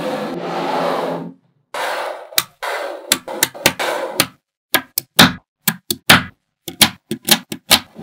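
Small magnetic balls rattling and clattering against each other as sections of them are handled for most of the first half, then a quick run of sharp clicks as pieces of balls snap onto the model.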